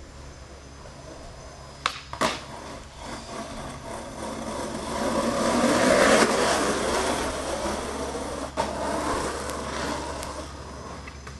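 Skateboard wheels rolling on an asphalt path, growing louder as the board passes close around the middle and then fading away. Two sharp clacks of the board about two seconds in, and another near the end.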